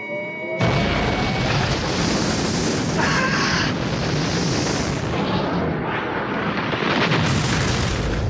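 Animated sci-fi explosion sound effect: a brief electronic tone with a rising glide, cut off less than a second in by a loud, sustained blast that keeps rumbling, with fresh surges about three seconds in and near the end.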